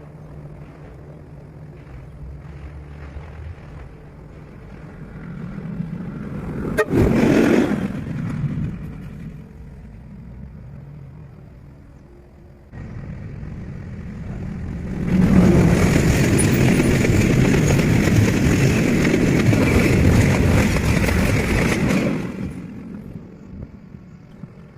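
Trains passing at speed: a rumble swells to a brief peak about seven seconds in and dies away. Then a second, louder pass rushes by for about seven seconds before fading.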